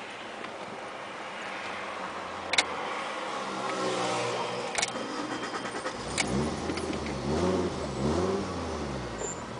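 Fiat Marea Weekend's turbocharged 2.0 five-cylinder engine running while stationary, then blipped several times in the second half, the revs rising and falling in quick succession. Three short, sharp hisses from the HKS SSQV blow-off valve venting come about a quarter, half and two-thirds of the way in; the first is the loudest.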